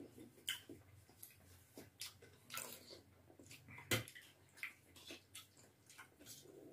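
Two people eating spicy instant noodles with forks: irregular wet slurps and chewing, with sharp clicks of forks against steel plates, the loudest about four seconds in.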